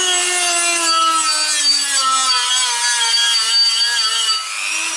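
Handheld electric rotary tool whining as it sands rust spots and fine grooves off the face of a steel brake disc, the rough patches that make the brakes squeal. Its pitch sinks slowly and wavers as the tool is pressed against the disc, then rises briefly near the end.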